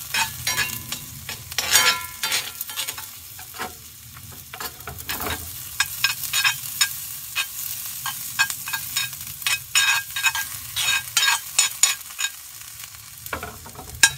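Diced vegetables sizzling in hot olive oil in a cast iron skillet while a spoon stirs them, scraping and clicking irregularly against the pan.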